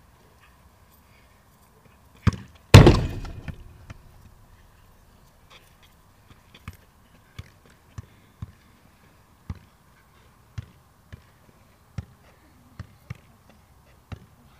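A football being kicked: a sharp knock, then a much louder bang with a short ringing decay about three seconds in. After that comes a string of lighter, sharp taps, every half second to a second, as the ball is kicked and bounced.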